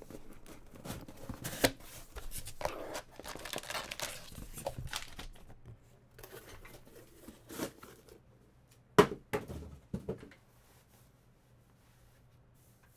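A taped cardboard card box being opened by hand and its foil-wrapped packs taken out: tearing and crinkling of packaging, with scattered sharp knocks, the loudest about nine seconds in.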